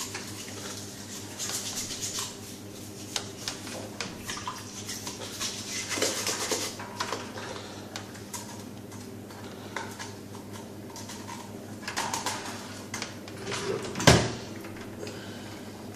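Green scouring pad scrubbing a skimmer pump's impeller magnet, in scratchy bursts, over a steady low hum. There is one sharp knock about fourteen seconds in.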